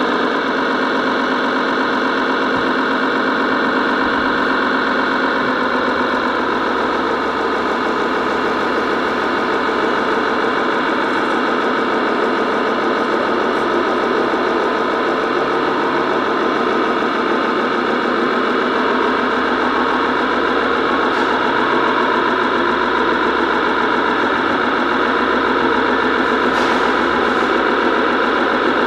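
Radio-controlled scale truck driving, heard from on board: a steady, loud mechanical drone from its drive train.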